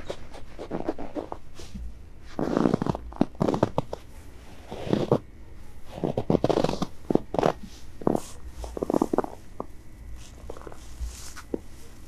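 Boots crunching in fresh powder snow: a slow, uneven series of footsteps, roughly one a second.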